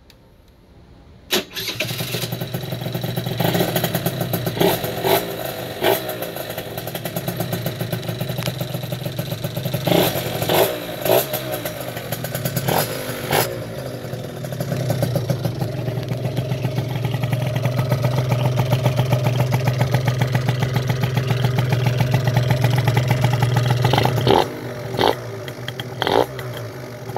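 Derbi GP1 scooter's two-stroke engine, tuned with a Malossi MHR Replica cylinder kit, Yasuni C10 expansion exhaust and 25 mm PHBL carburettor, starting about a second in and then running with repeated short throttle blips. About halfway it holds a higher, steady speed for around ten seconds, then drops back with a few more blips near the end.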